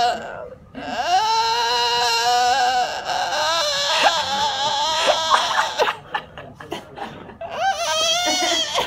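A person's high-pitched voice making long, wavering, quavering wails, like mock crying, with shorter broken cries in between.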